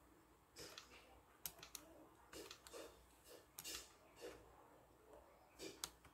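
Keys being typed on a B.O.W. keyboard with round, typewriter-style keycaps: an irregular run of faint clicking keystrokes, starting about half a second in.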